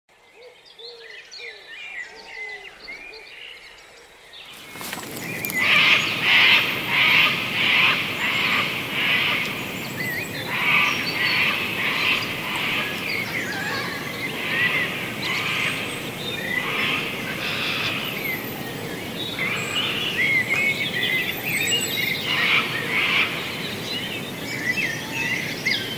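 Outdoor ambience of many birds chirping and calling over one another. About five seconds in, a steady rushing hiss rises beneath them and holds.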